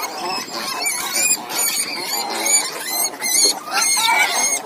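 Wild pig squealing over and over in a rapid run of high, rising-and-falling cries.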